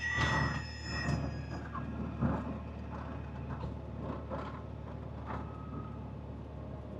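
Steady low engine drone heard inside a Cessna 172's cabin, with scattered knocks and rattles every second or so. A ringing tone fades out in the first second and a half.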